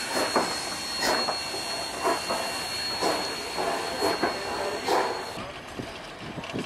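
Durango & Silverton narrow-gauge steam locomotive moving slowly: exhaust chuffs about once a second over a steady hiss of steam. After about five seconds the sound drops to a quieter, fainter background.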